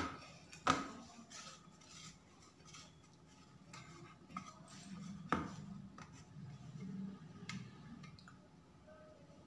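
Metal clinks from a knife and hand against a stainless steel plate as pieces of barfi are cut and lifted: two sharp clinks in the first second, another about five seconds in, and a fainter one later.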